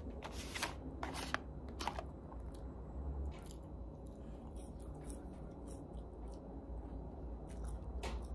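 Eating a McDonald's meal and handling its paper packaging: crisp crinkles and crunches, a few sharp ones in the first two seconds and another near the end, with faint clicks between.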